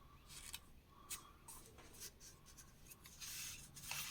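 Faint rustling and brushing of magazine paper as the pages are handled and turned, with a few light ticks; the rustle grows louder about three seconds in.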